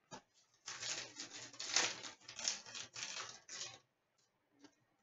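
A stack of hockey trading cards shuffled and slid against each other in the hands: a quick run of papery rustling and flicking for about three seconds, then a couple of faint clicks.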